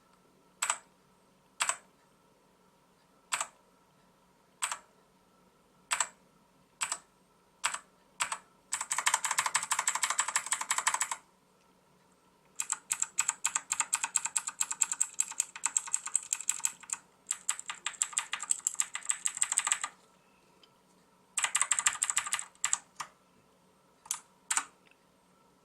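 Xenics STORMX TITAN MARK VII mechanical keyboard with clicky blue switches being typed on: single keystrokes about a second apart, then several fast runs of typing with short pauses between them, then a few single keystrokes again near the end.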